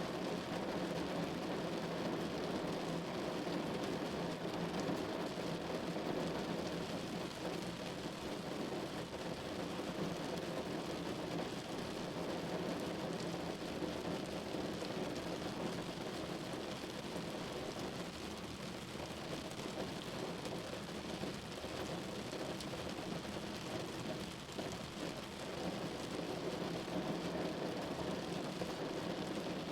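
Steady rain falling, an even wash of noise that holds level throughout.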